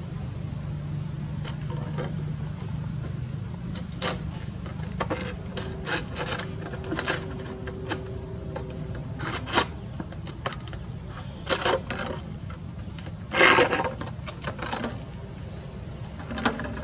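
An empty plastic water bottle crackling, scraping and clattering on brick paving as a baby macaque paws and pushes it: irregular short crinkles and knocks, the loudest cluster a little past the middle and another near the end. A steady low hum runs underneath.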